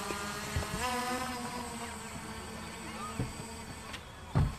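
SG906 Pro quadcopter drone's motors buzzing, a stack of steady tones that steps up in pitch about half a second in. A short low thump comes near the end.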